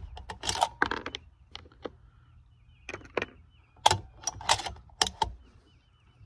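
Bolt of a 6BR bolt-action rifle being cycled after a shot: two runs of sharp metal clicks and clacks, the first right at the start and the second from about three to five seconds in.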